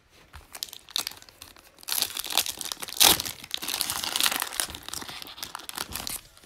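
Foil wrapper of a Panini Mosaic football card pack being torn open and crinkled in the hands. The crinkling thickens about two seconds in and is loudest around the middle.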